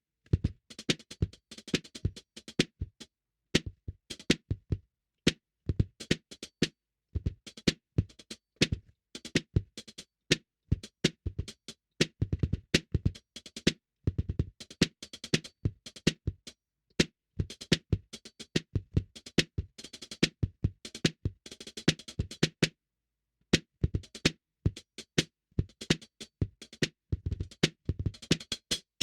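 Drum kit played in loose, busy grooves and fills, picked up by a single AT2020 condenser microphone. It stops briefly a few times, about three and a half seconds in, about seven seconds in, and again near twenty-three seconds.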